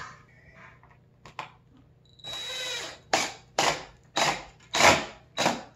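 Cordless drill driving a wood screw into the wall: one steady run of a little under a second, then five short, loud bursts about half a second apart as the screw is driven home.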